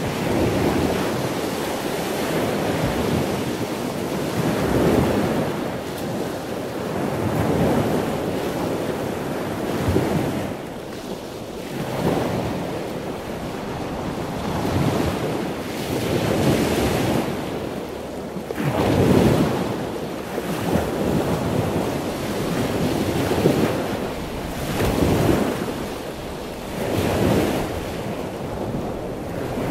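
Sea waves breaking and washing up the shore, one surge after another every two seconds or so.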